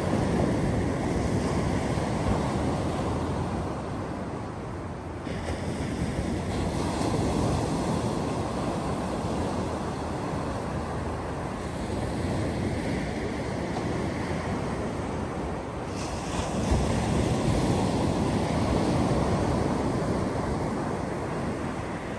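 Ocean surf breaking on a sandy beach and washing up the shore, a continuous rush that swells and eases with each wave, loudest about three-quarters of the way through.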